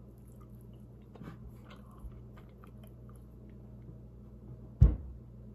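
A man chewing a mouthful of rotisserie-cooked gar fish, with faint soft mouth sounds and small clicks. A single sharp thump a little before the end.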